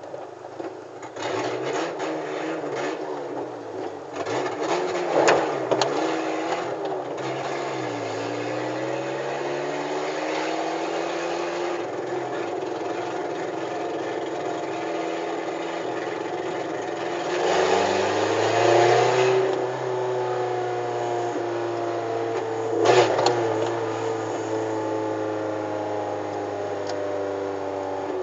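VW Gol G4's four-cylinder engine running loud through a direct exhaust with the lambda sensor removed, revving up and settling through the gears as the car drives, with two sharp cracks, one early and one near the end.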